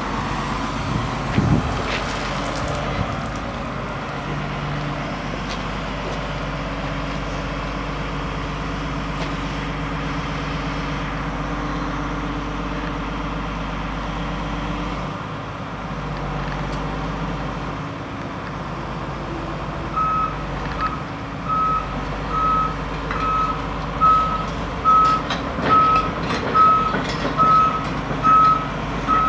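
Volvo EC210BLC crawler excavator's diesel engine running steadily under hydraulic work. About two-thirds of the way in, a travel alarm starts beeping, a single high tone repeating a little more than once a second, the warning that the excavator is moving on its tracks.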